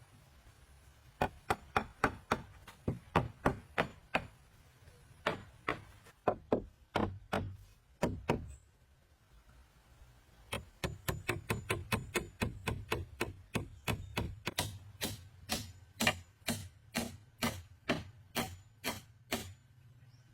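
Repeated sharp blows of a hand tool, about two to four a second, in three runs with short pauses between; the last run is the longest.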